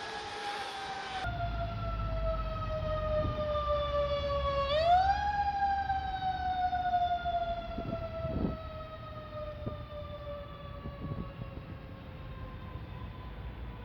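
Fire engine siren winding down in pitch, spun back up quickly about four and a half seconds in, then winding down slowly again, over a low engine rumble.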